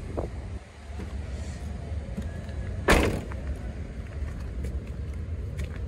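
A Toyota Avanza's door shutting with a single loud thump about three seconds in, over a steady low rumble.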